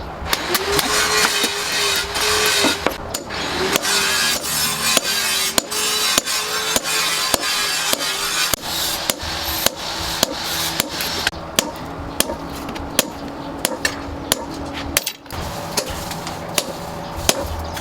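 Repeated hand-hammer strikes on metal, a few blows a second, over background music with a slow stepping melody.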